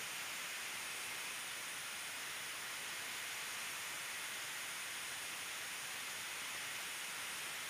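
Steady, even hiss of background noise with no other sound, unchanging throughout.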